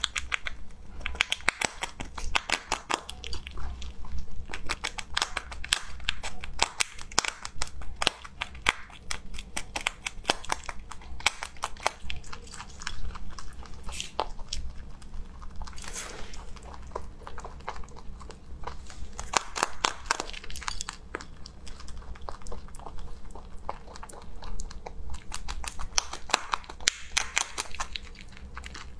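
A rabbit biting and chewing a hard heart-shaped treat, close-miked: quick runs of crisp crunches with short pauses between them.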